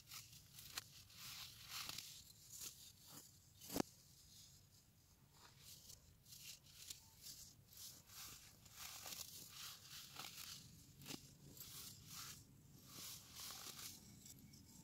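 Dyed compressed baking soda chunks being crushed and crumbled by hand: soft powdery crunches and gritty crackling, with one sharp crack about four seconds in.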